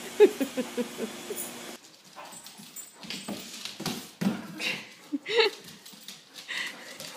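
Dogs at play: a quick run of about five short, high cries in the first second and a half, then scattered short cries and knocks of scuffling.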